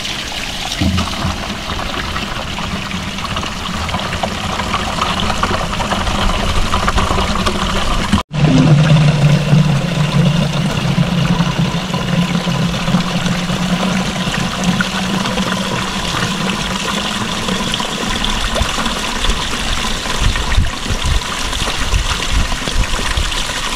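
Spring water trickling and splashing steadily into a plastic jerry can as it is filled from a small hillside spring.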